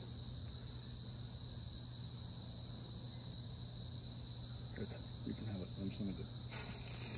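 Crickets chirping in a steady, unbroken high trill, with faint voices in the background.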